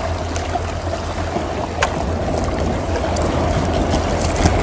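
Steady rush of seawater around a kayak, with a low rumble underneath and one sharp click about two seconds in.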